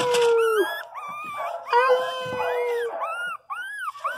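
Young pinscher puppies whining and crying: two long drawn-out whines that sag slightly in pitch, then a run of short rising-and-falling cries near the end, with more than one pup sometimes crying at once.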